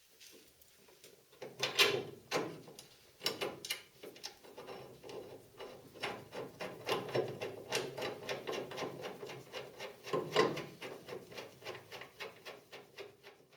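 A run of irregular knocks, clicks and rattles of things being handled and worked, denser from about six seconds in, over a faint hum.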